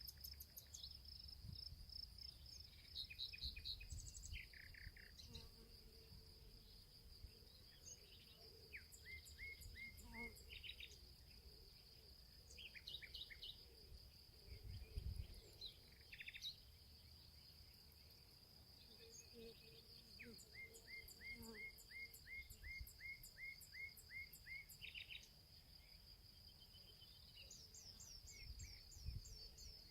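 Faint woodland birdsong: several birds giving repeated series of short chirps, over a steady high-pitched insect-like whine, with occasional low rumbles.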